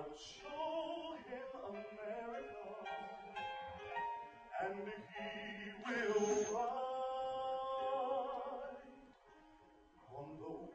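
A singer performing a Broadway ballad live with instrumental accompaniment. A long note held from about six seconds in fades out around nine seconds.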